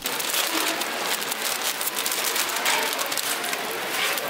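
Clear plastic bag crinkling under rubber-gloved hands as sheets of crispy rice crust (nurungji) are packed into it: a dense, steady crackle.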